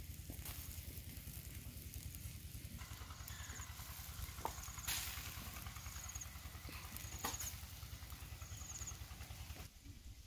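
Wood fire crackling and popping under chicken feet grilling on a wire rack, over a steady low rumble. A short high chirp repeats about five times in the middle, and the rumble drops near the end.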